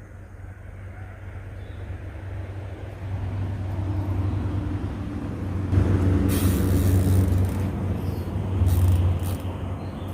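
Low engine rumble of a passing motor vehicle, growing steadily louder over several seconds as it approaches.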